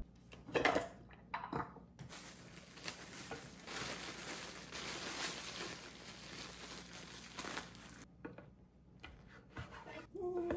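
Plastic bread bag crinkling and rustling as slices of bread are handled and taken out, for about six seconds, followed by a few light knocks and scrapes on a wooden cutting board.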